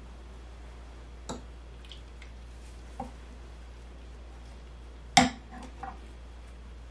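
A few short clinks and knocks of a glass bowl and utensil against a stainless steel stand-mixer bowl as melted butters are scraped in; the loudest knock comes about five seconds in.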